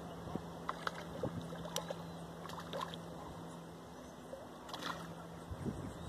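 Small pops and light splashes of fish feeding at the water surface, scattered in a few clusters, over a steady low hum.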